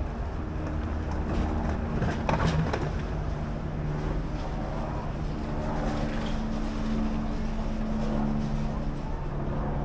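City street traffic: vehicle engines running with a steady low rumble and hum, and a brief clatter about two seconds in.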